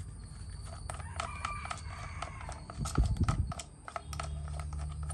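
Plastic clicks and rattles as the engine shroud of a Shindaiwa S231 backpack pruner is handled and pried open, with a dull thump about three seconds in. A rooster crows in the background.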